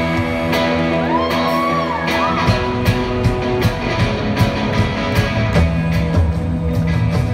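Live rock band playing: electric guitars, bass, synth and drums, with held chords at first. A voice glides up and down about a second in, and the drums hit harder from about two and a half seconds in.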